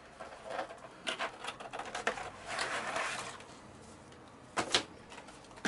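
Handling noise from board game components and packaging being unpacked: light clicks and rustles, a longer rustle about halfway through, and a couple of sharper clicks near the end.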